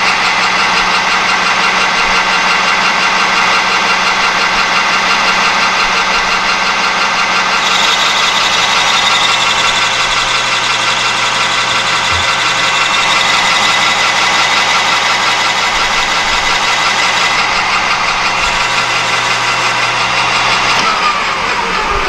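Metal lathe spindle running with a steady whine while the tool turns down the outside of a small rod. Near the end the spindle is switched off and winds down, its pitch falling away.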